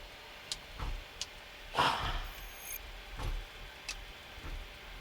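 Boeing 737-800 flight deck while taxiing: a faint steady low hum with a few short clicks and knocks, the loudest a brief noisy burst about two seconds in.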